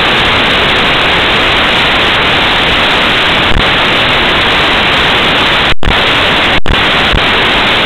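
Loud, steady hiss of static with no other sound over it, cut by two very short dropouts to silence near the end.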